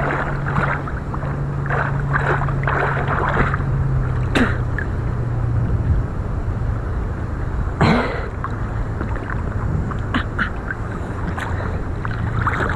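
Water and wind noise around a rolling sailboat over a steady low hum, with irregular splashes and two sharp knocks, about four and eight seconds in.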